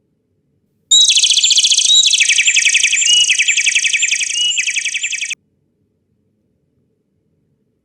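Bird-song sound effect: a run of fast trilled chirps, repeated about twice a second and stepping down in pitch partway through. It starts suddenly about a second in and cuts off abruptly after about four and a half seconds.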